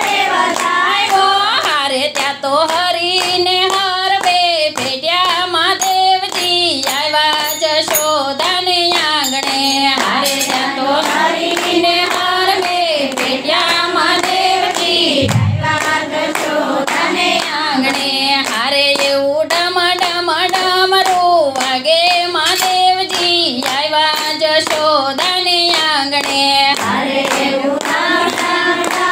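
Singing of a Gujarati devotional kirtan (bhajan), kept in time by steady rhythmic hand clapping.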